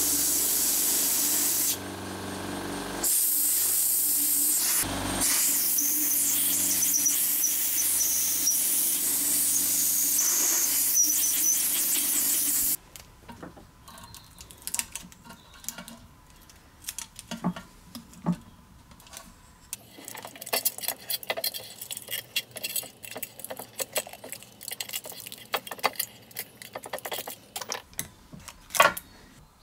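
A loud, steady hiss of a pressurised jet, with a faint machine hum under it. It dips about two seconds in, breaks briefly at five seconds and stops suddenly about thirteen seconds in. After that come quiet clicks, taps and scrapes of small metal parts being handled, with a sharp click near the end.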